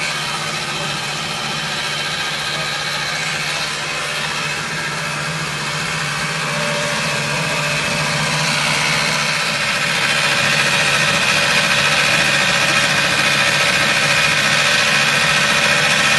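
Electric cylinder (reel) lawn mower with a 2 hp motor running steadily while it cuts grass: the motor's hum and the whirr of the spinning blade cylinder, getting a little louder past the halfway point.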